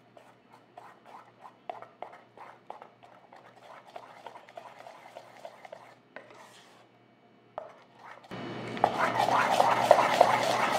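Metal spoon stirring thick unniyappam batter in a stainless steel bowl: soft, quick clicks at first, then after a short pause louder, dense scraping and clinking of the spoon against the steel sides.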